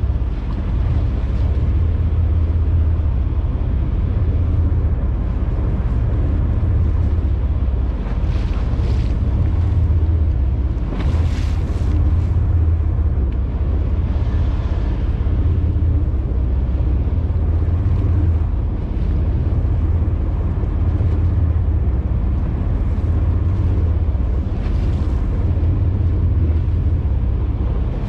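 Steady low rumble of wind buffeting the microphone, with sea water washing against the boat's hull and a few brief hissing gusts about eight, eleven and twenty-five seconds in.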